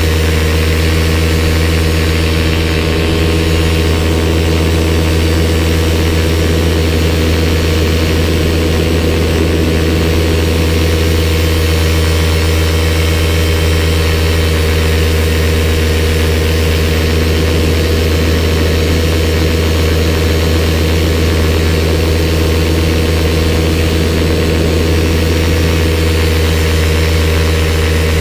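Paramotor engine and propeller running at a steady throttle in flight, heard close behind the pilot's head: a constant low drone that holds the same pitch throughout.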